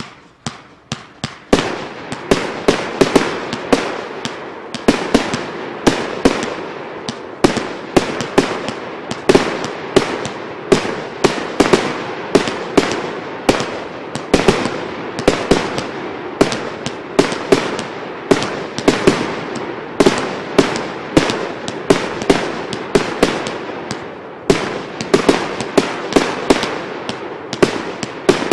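CGFP-31 firework battery going off: a rapid barrage of sharp bangs, several a second, that starts abruptly and keeps firing without a break.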